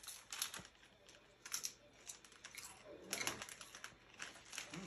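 Crinkling of a foil Lay's potato chip bag as hands reach in and pull chips out, mixed with crisp chip crunches: short irregular crackles in clusters, the densest about three seconds in.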